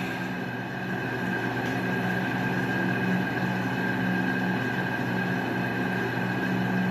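A steady droning hum with several held tones, unchanging in level.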